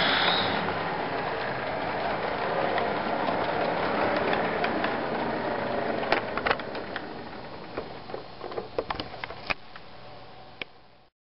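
HO scale model train running away around the track, its steady mechanical running noise fading. Sharp clicks and ticks are scattered through the second half. The sound cuts off abruptly near the end.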